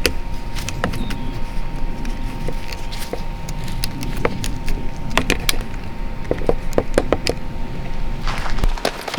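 A run of short, sharp clicks and knocks, irregular and crowding together from about five seconds in, over a steady low rumble and a faint steady tone.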